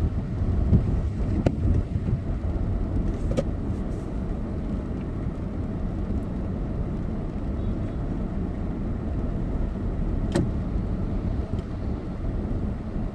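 Car interior noise while driving on a wet road: a steady low rumble of engine and tyres, with a few brief clicks.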